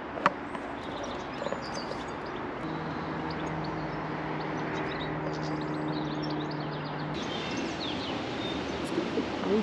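Outdoor ambience: small birds chirping faintly over a steady background rush. For a few seconds in the middle, a low steady hum comes in and then stops.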